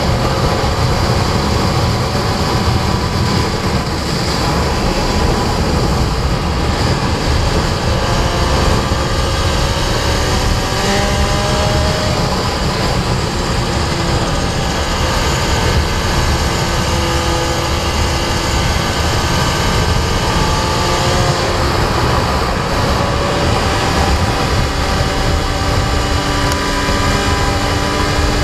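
Sport motorcycle engine at track speed, heard from an onboard camera under heavy wind noise; the engine note climbs and drops again and again as the rider works the throttle and gears.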